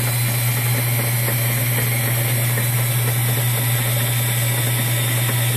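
A metal lathe and a Dremel-style die grinder running together with a steady, even hum, while the grinder's cutter is fed slowly into a spinning rubber stopper to bore a hole.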